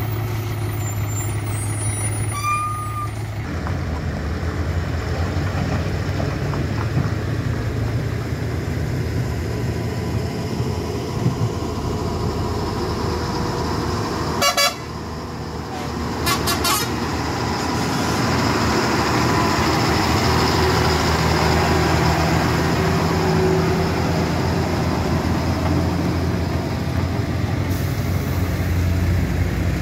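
Heavy diesel truck engines labouring uphill on a hairpin bend. A loaded ten-wheel Ashok Leyland truck pulls the climb, getting louder from a little past the middle, and a vehicle horn sounds.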